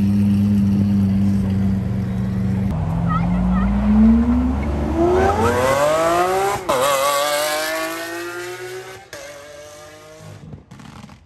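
Lamborghini Aventador's V12 pulling away under hard acceleration. It runs at low revs at first, then the engine note climbs steeply, drops at an upshift about six and a half seconds in, and climbs again as the car fades into the distance.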